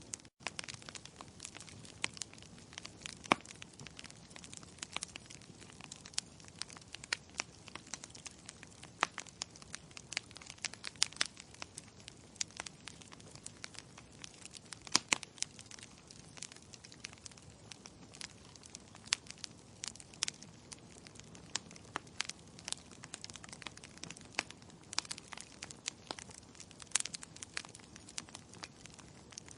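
Logs burning in a fireplace: a soft steady hiss with frequent sharp crackles and pops, a few much louder snaps among them. The sound cuts out for an instant just after the start.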